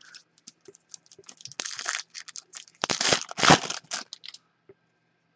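Foil wrapper of a trading-card pack being torn open and crinkled by hand: a run of crackling rustles, loudest about three seconds in, which then stops.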